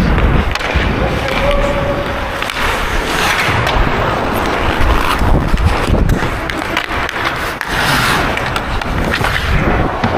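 Ice hockey skate blades carving and scraping across the ice at close range, a continuous rushing scrape that swells and fades with each stride, with occasional sharp knocks.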